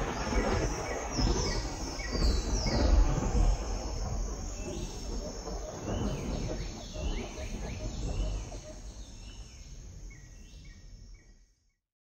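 Intro sound bed: a deep rumble with many short, high chirps over it, most falling in pitch. It grows quieter through the second half and cuts out shortly before the end.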